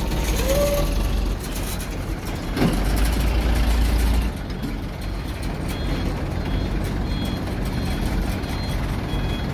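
Heavy diesel engines running on a car ferry's vehicle deck, a steady low rumble that drops in level about four seconds in. In the second half, faint high beeps repeat at an even pace.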